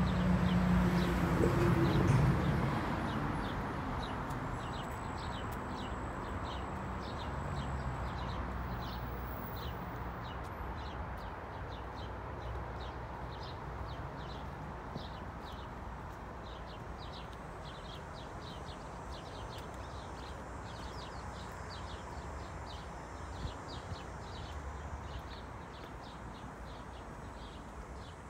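Outdoor city-park ambience: a steady distant traffic hum, louder with a passing vehicle in the first couple of seconds, under a run of short, high bird chirps repeating several times a second.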